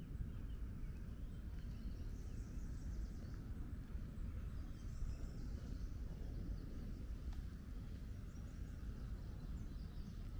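Outdoor park ambience: birds chirping on and off over a steady low rumble.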